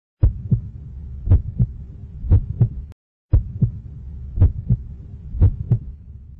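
Heartbeat sound effect: paired low thuds, one pair about every second, over a low hum. It breaks off briefly about three seconds in and starts again.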